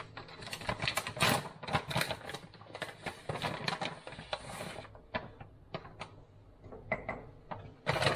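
Crinkling and crackling of a plastic pouch being handled and opened by hand: dense, irregular crackles at first, thinning out about halfway through, with a few sharper crinkles near the end.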